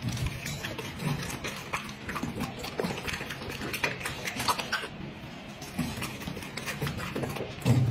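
A dog eating hand-fed chunks of juicy fruit: chewing and lip-smacking, many quick irregular smacks.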